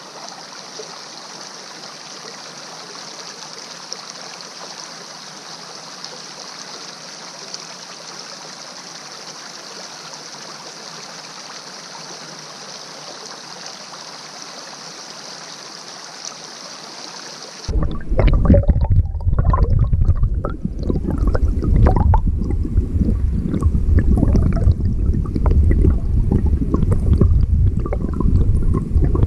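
Flowing stream water heard through a camera held underwater. For about the first two-thirds it is a steady, fairly quiet hiss; then it switches suddenly to a much louder, low rushing and gurgling of current around the camera.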